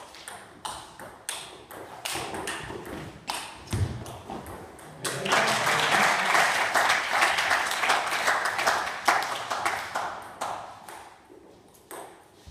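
Table tennis rally: the ball clicks sharply off bats and table, with a low thud near the end of the rally. About five seconds in, spectators applaud for about five seconds, fading out.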